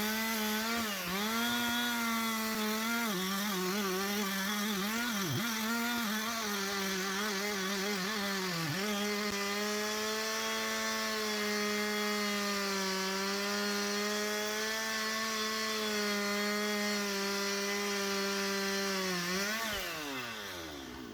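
Husqvarna 371 XP two-stroke chainsaw cutting wood at full throttle. The engine pitch dips again and again as the chain bites in, then holds steady through a long cut, and falls away near the end as the throttle is let off.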